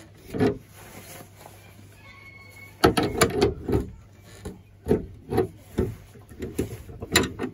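A metal spanner clicking and knocking on the brass nut of a braided flexible hose as it is worked onto a toilet cistern's plastic fill-valve tail. There is one knock about half a second in, then a run of irregular knocks and clicks from about three seconds in.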